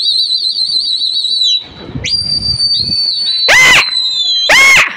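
Loud, piercing hand whistles blown by pigeon flyers to the circling flock: a warbling, trilled whistle that stops about a second and a half in, a second held whistle from about two seconds in, then two short, very loud shrill yells near the end.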